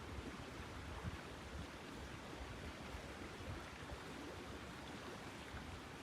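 Faint, steady outdoor ambience: an even hiss with a low, uneven rumble of wind on the microphone.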